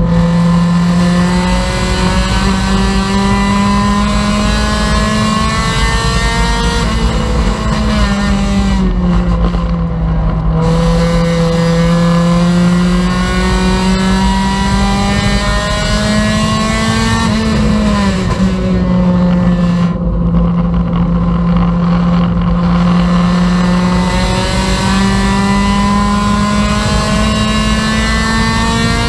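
Honda Civic race car's four-cylinder engine heard from inside the stripped cabin, pulling hard on track. Its pitch climbs steadily, drops back at about seven seconds and again at about eighteen seconds, and climbs again each time.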